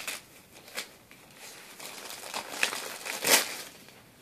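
Plastic gift wrap crinkling as a dog noses and bites at it, in irregular spells with a louder crackle about three seconds in.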